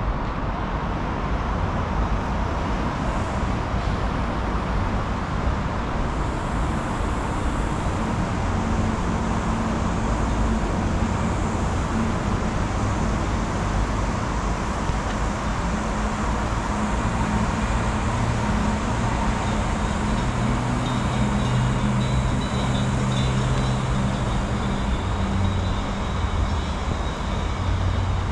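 Steady noise of road traffic, with the drone of vehicle engines swelling about a third of the way in and again past the middle.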